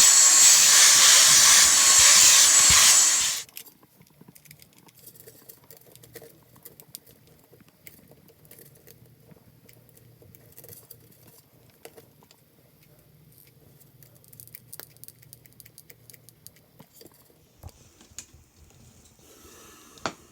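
Power drill running at steady speed, then stopping abruptly about three seconds in, followed by faint clicks and light handling noises.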